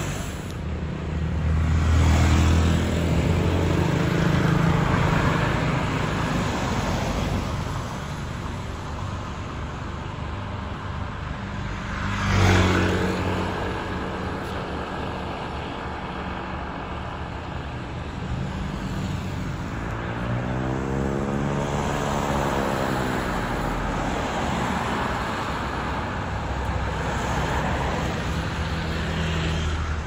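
Road traffic: cars and motorcycles driving past one after another. One vehicle passes close about twelve seconds in, and a little past the middle an engine's pitch rises and then falls as it goes by.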